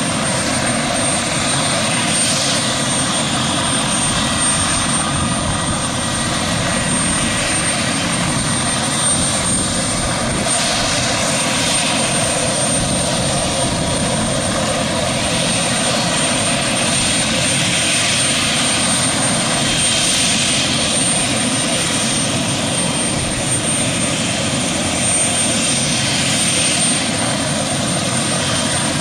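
Airbus Helicopters AS355F2 Ecureuil 2 (twin Allison C20F turboshafts) running on the ground with its main rotor turning, a steady loud engine and rotor noise with a thin high-pitched turbine whine on top.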